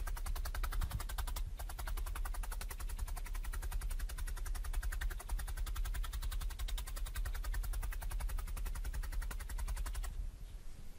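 Felting needle stabbing again and again through wool roving into a dense foam mat, heard as a rapid, regular stream of pokes in sped-up footage; it stops about ten seconds in.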